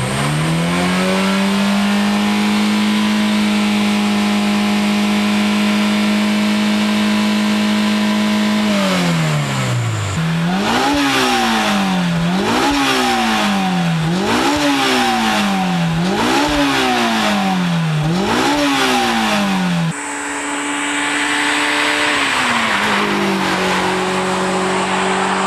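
Honda S2000's four-cylinder engine through an aftermarket performance exhaust, revved up and held at a steady high rpm for several seconds, then dropping and revved five times in quick rising-and-falling pulls. About three-quarters of the way through, a sudden cut brings a steady high-rpm drone that eases a little lower and holds.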